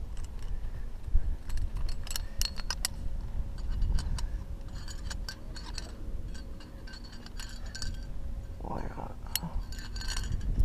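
Metal climbing gear on a harness rack, carabiners, cams and quickdraws, jingling and clinking in several short bursts as the climber moves and clips in.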